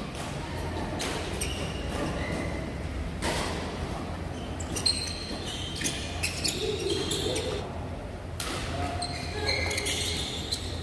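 Badminton doubles rally in an echoing sports hall: a series of sharp racket strikes on the shuttlecock, with short squeaks of shoes on the court floor.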